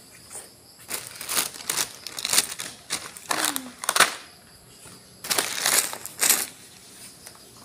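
Rustling and crinkling close to the microphone in irregular bursts, like plastic being handled, heaviest about five to six and a half seconds in.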